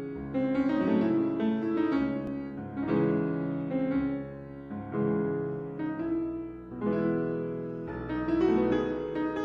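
Background piano music: a melody of sustained notes over chords.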